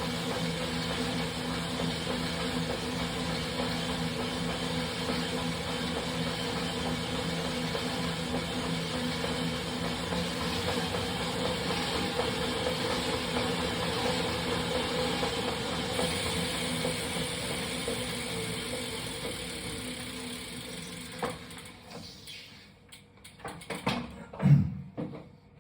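Wahoo Kickr Rollr bike roller trainer running steadily under a rider, a whirring hum with the prominent knocking noise that the roller makes once its warm-up squeal has died down. About 20 seconds in it winds down and stops, followed by a few sharp clatters and a loud thump near the end.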